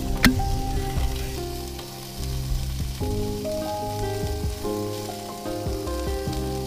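Smokie sausages sizzling on a barbecue, with a sharp click just after the start. Background music with held notes plays over it.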